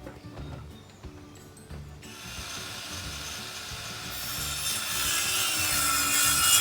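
Wood rasping as a board is worked, a continuous scraping that starts about two seconds in and grows steadily louder.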